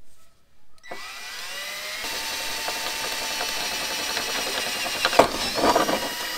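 Cordless drill spinning up about a second in and running steadily as a 5/16-inch bit opens up a pilot hole in the vehicle's sheet-metal body panel. About five seconds in the cutting turns louder and harsher.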